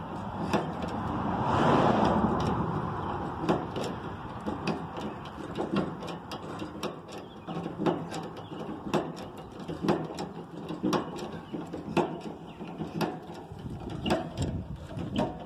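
Hydraulic cab-tilt jack of a cab-over truck being pumped by hand, a sharp clack about once a second as the two rams push the cab up and forward. A louder rushing noise swells and fades about two seconds in.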